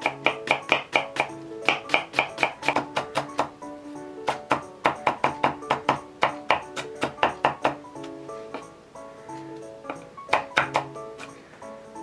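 Chef's knife rapidly chopping red onion on a wooden cutting board, in quick runs of sharp knocks several a second that stop about eight seconds in and return briefly later, over background music.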